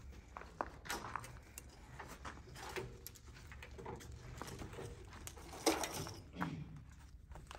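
Scattered clicks, knocks and rustling as a wiring harness is handled and pulled out through the cab of a Komatsu PC210-8 excavator, with one louder knock a little before the end.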